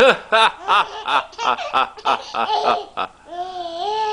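Baby boy laughing: a quick run of short laughs, about three or four a second, then a longer drawn-out squeal that wavers in pitch from about three seconds in.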